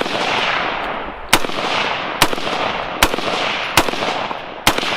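A string of five gunshots about a second apart, each followed by a long echoing tail.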